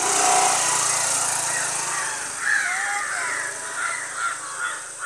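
A motor scooter's engine running as it pulls away down the road, fading slowly, with crows cawing repeatedly in the second half.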